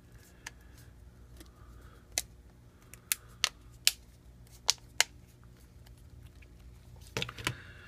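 Plastic clips of an LG Aristo's replacement screen frame clicking as the frame is pressed and snapped into the phone's housing: separate sharp clicks every second or so, with a quick cluster near the end.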